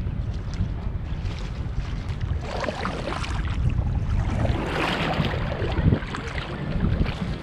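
Water splashing and sloshing, loudest twice in the middle, over the low rumble of wind buffeting the microphone.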